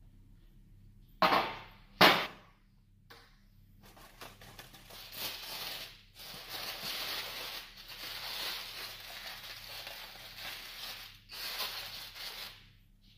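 Two sharp knocks about a second apart, a metal roasting pan being handled and set down, then a long spell of aluminium foil crinkling and rustling as it is peeled back by hand, with short pauses.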